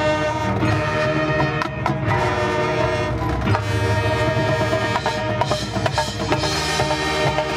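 Marching band playing its field show: held chords from the winds over frequent percussion strikes from the drums and the mallet keyboards of the front ensemble.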